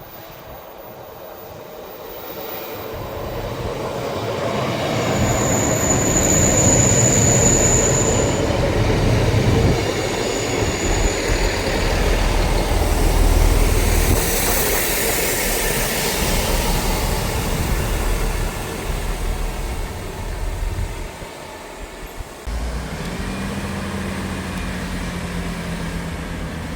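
A diesel train running through on the line. The noise builds over several seconds, with a brief high wheel squeal, and stays loud for about fifteen seconds. It drops away suddenly about 22 seconds in, leaving a steady low hum.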